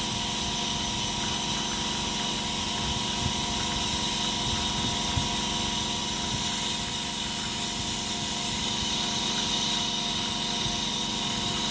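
Steady whirring hiss of a small motor-driven machine with a high-pitched whine, holding the same pitch and level throughout.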